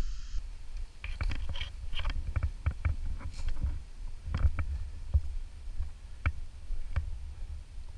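Dry fallen leaves crunching and rustling underfoot in irregular crackles as someone moves through a leaf-covered wood, over a low rumble.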